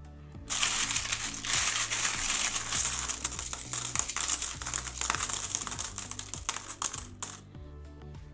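Loose metal coins jingling and clinking together as a hand rummages through a tub of them. It starts about half a second in and stops shortly before the end.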